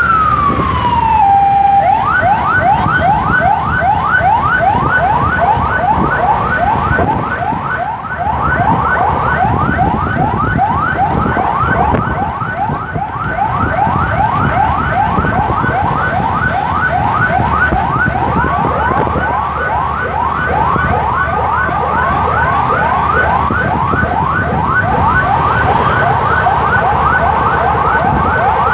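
Emergency siren sounding. At first one slow wail rises and falls, then about two seconds in it switches to a fast yelp of quick rising sweeps, three or four a second, which continues steadily. Underneath runs the rumble of motorcycle engine and road noise.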